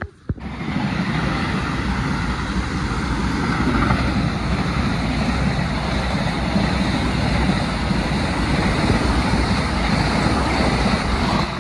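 Vande Bharat Express electric train passing close at speed: a loud, steady rush of train and rail noise with wind buffeting the microphone, starting suddenly about half a second in and cutting off sharply at the end.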